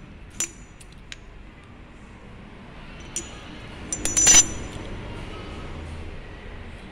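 Steel feed pump liner rings clinking against each other and the metal tray as they are picked up and set down: a few light ringing clinks, then a louder cluster of clinks about four seconds in.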